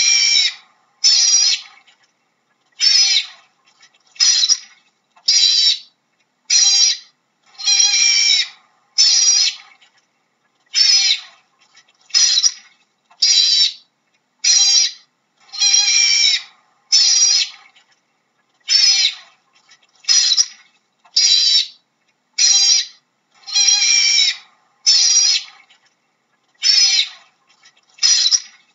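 Otter giving a long series of high-pitched, squealing calls, one about every second, each call short and separate from the next.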